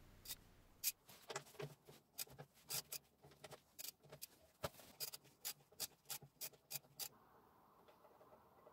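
Wrench working the oil sump drain plug loose under a car: a run of sharp metallic clicks, irregular at first, then evenly paced at about three a second, stopping about seven seconds in.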